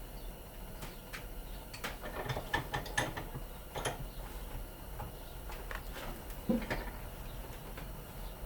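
Scattered clicks and light rattles of small metal and plastic parts being worked by hand, as brass prongs are pulled and pried out of electrical plugs; a brief pitched squeak about six and a half seconds in.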